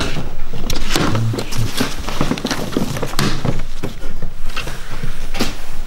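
Sheets of paper being handled and swapped: irregular rustling, with knocks and taps on a wooden crate.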